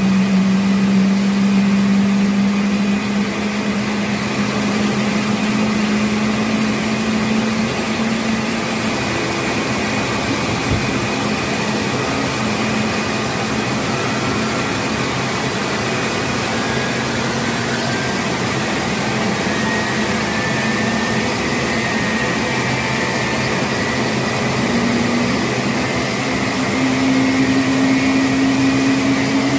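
Embraer E195-E2's Pratt & Whitney PW1900G geared turbofan engines running steadily during a ground engine test: a steady jet rush with a low hum and a higher whine. The hum drops slightly in pitch about eight seconds in and rises again near the end.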